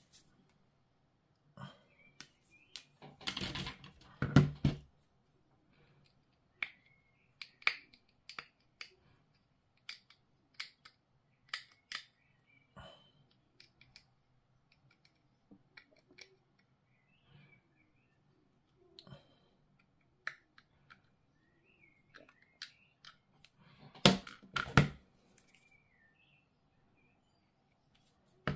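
Sprue cutters snipping plastic miniature parts off their sprue, with handling of the plastic: a scattered series of sharp snips and clicks, and two louder, longer stretches of it about three seconds in and near the end.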